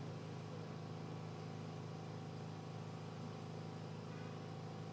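A steady low mechanical hum with no change in pitch or level.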